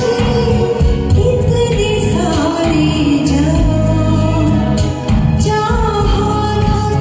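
Karaoke singing of a Hindi film duet over a recorded backing track: a sung melody line over steady music with a strong bass.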